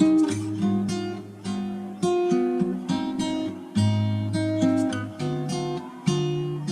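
Background music of plucked and strummed chords, each note starting sharply and ringing out as it fades.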